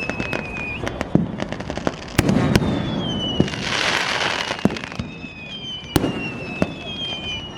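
Firecrackers and fireworks going off: many sharp bangs at irregular intervals, the loudest about two seconds in and again about six seconds in. A dense hissing burst comes near the middle, and high whistling tones slowly fall in pitch throughout.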